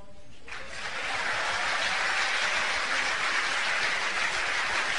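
Studio audience applauding, rising about half a second in and then holding steady.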